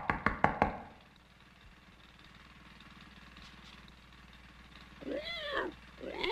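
A rapid run of sharp, evenly spaced pulses, about six a second, fades out within the first second. After a quiet stretch, two squealing animal cries rise and fall in pitch near the end, the second louder.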